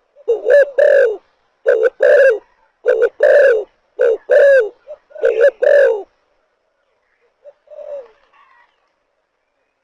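Spotted dove cooing: a run of loud, repeated coo phrases over about six seconds, then one faint coo a little later.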